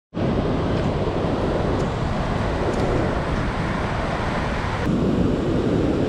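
Wind buffeting the microphone over the steady wash of ocean surf. About five seconds in the sound shifts to nearer surf rushing over rocks.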